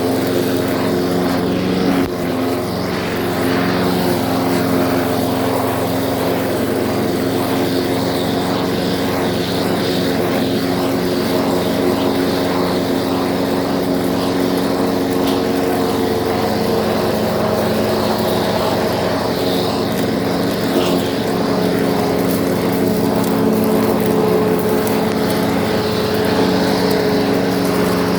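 Lawn mower's small engine running steadily at an even speed.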